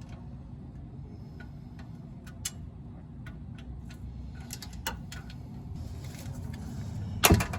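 Socket wrench working on the Silverado 4.3L V6's oil drain plug with a Torx T45 bit: scattered light metal clicks over a steady low hum, then one loud sharp crack near the end as the plug breaks loose.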